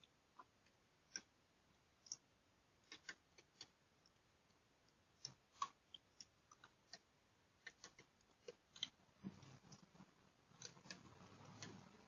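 Near silence broken by faint, irregular clicks and ticks, with a faint low rumble in the last few seconds.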